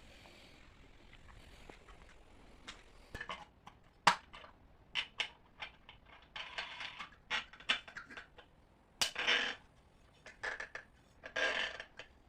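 Scattered clicks, knocks and short rattling clatters of hard objects being handled, with no motor running. The loudest sharp click comes about four seconds in, and longer rattles come around nine and eleven seconds.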